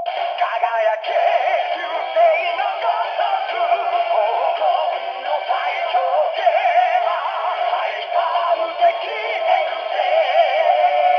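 Music with a singing-like electronic vocal line playing through the DX Neo Decadriver toy belt's speaker. It runs without a break and sits in a narrow, thin band with no bass.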